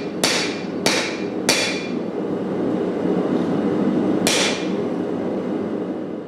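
A hand hammer rings as it strikes hot Damascus steel on an anvil: three blows about half a second apart, then one more about four seconds in. Under the blows runs the steady roar of a propane forge.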